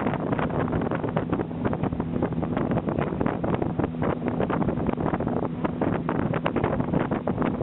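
An engine running steadily, with heavy wind buffeting the microphone.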